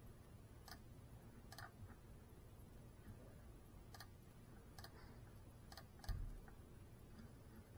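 Near silence, with about half a dozen faint, irregularly spaced clicks and a soft low thump about six seconds in.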